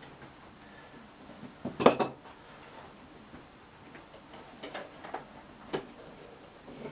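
Sharp metallic clinks and knocks, a cluster of them about two seconds in and a few lighter ticks later on: blacksmith's tongs and the red-hot billhook blade being handled just before the oil quench.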